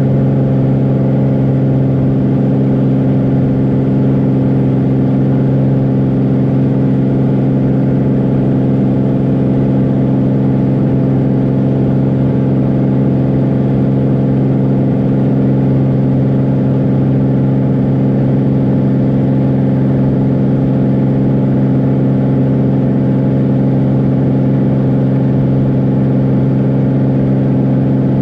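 Steady drone of a Beechcraft Bonanza's piston engine and propeller in the cockpit at climb power, holding an even pitch while the aircraft climbs.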